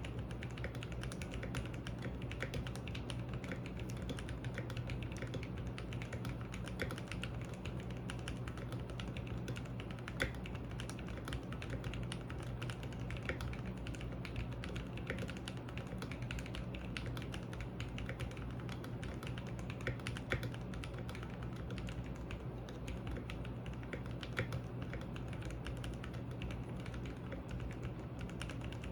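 Continuous fast typing on a Keychron Q1 mechanical keyboard with Gateron Phantom Brown tactile switches, an aluminium plate and stock ABS keycaps. Keystrokes clatter steadily, with a few louder single strokes standing out.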